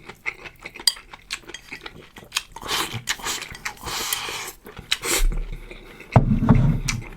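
Cutlery clinking against dishes, with chewing and eating sounds. A louder, low sound under a second long comes about six seconds in.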